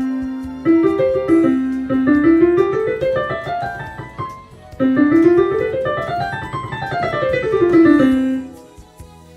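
Casio Celviano AP-620 digital piano being played to test it after a stuck key was freed. A held note is followed by rising runs, then a fast run up and back down the keyboard, which dies away shortly before the end.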